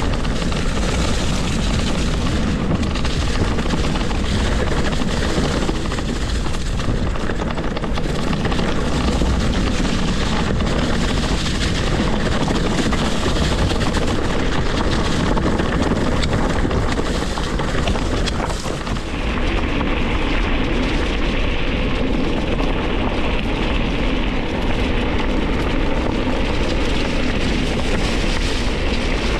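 Wind buffeting the camera microphone along with the tyre and trail rumble of a mountain bike being ridden, a steady loud noise. A little past the middle it turns brighter and hissier.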